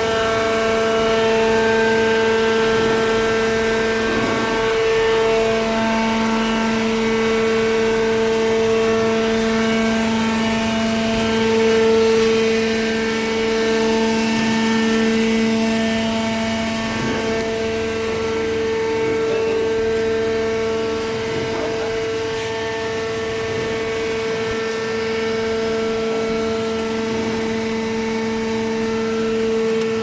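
Hydraulic baler running: its electric motor and hydraulic pump give a steady hum with a pump whine, and some higher overtones come and go.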